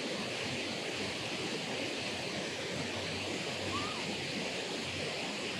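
Water pouring over a low dam spillway, a steady rushing noise without a break. A short faint chirp about four seconds in.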